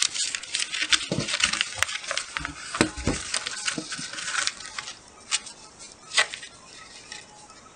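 Clear self-adhesive laminating sheet and paper crinkling and crackling as they are handled and pressed flat by hand: dense crackles for the first four or five seconds, then only a few scattered ones.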